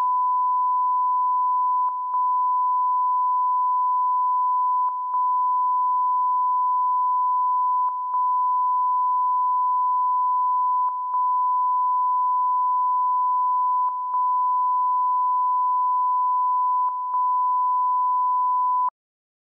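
Steady 1 kHz broadcast line-up test tone, briefly dipping every three seconds in the manner of the EBU stereo ident, then cutting off suddenly near the end.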